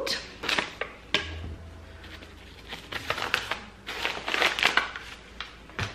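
Paper and plastic packaging rustling and crinkling as a bag is opened by hand, with a few sharp clicks and taps; the rustling is busiest about four seconds in.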